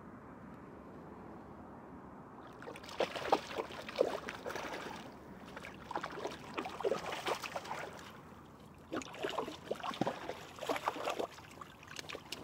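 A hooked trout splashing at the water's surface near the shore in three bouts, each a couple of seconds long, after a quiet start.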